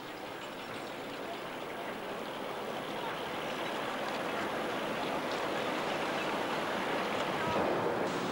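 Steady rushing noise of churned harbour water and passing motor boats, growing gradually louder.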